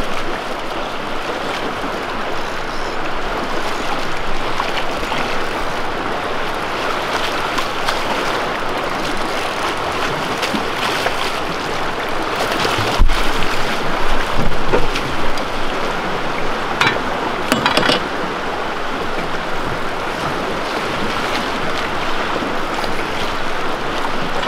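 Fast river current rushing steadily, with a sharp knock about halfway through and a few brief rattles a few seconds after it.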